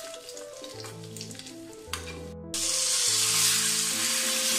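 Tempering frying in hot coconut oil in a small iron wok: mustard seeds and dried red chillies crackling in the first half. About halfway through it changes to a loud, steady sizzle as fresh curry leaves hit the hot oil.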